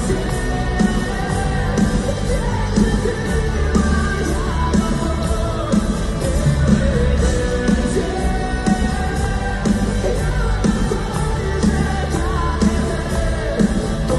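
Live rock-ballad performance by a full band, with a male singer's voice carrying the melody over a strong, steady bass and drums.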